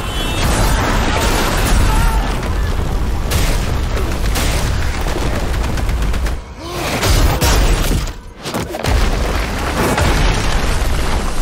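Action sound effects of a superhero fight smashing through a city: heavy booming impacts and crashing rock and debris over a continuous deep rumble. It drops away briefly twice, about six and a half and eight seconds in.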